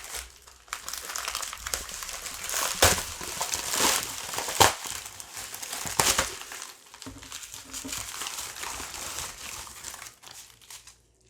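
Package wrapping crinkling and rustling as it is torn open by hand, with a few sharper snaps along the way. The crinkling dies away shortly before the end.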